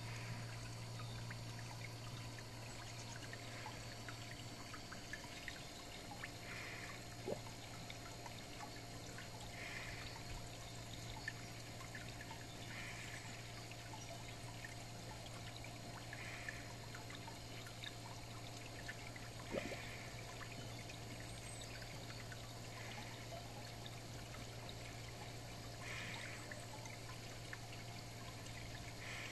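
Garden pond water running, a steady trickle over a low, constant hum, heard through an underwater camera. A faint soft rush recurs about every three seconds.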